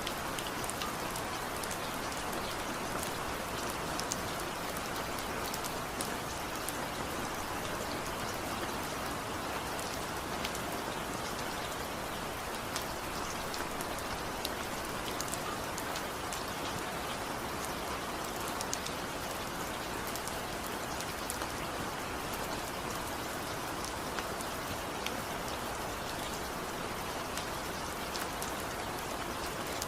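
Steady rain falling, a continuous hiss with many individual drops pattering distinctly on a surface.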